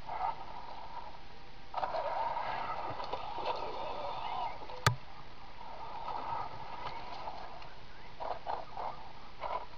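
Electric motor and gears of a radio-controlled scale trail truck whining in bursts as it crawls over loose river gravel, with a single sharp click about five seconds in.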